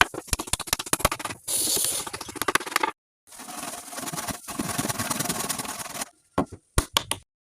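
Workshop sounds of a wooden window frame being worked and assembled: a quick run of sharp knocks and clicks, then stretches of scraping or rubbing, broken by abrupt cuts to silence, with a few more knocks near the end.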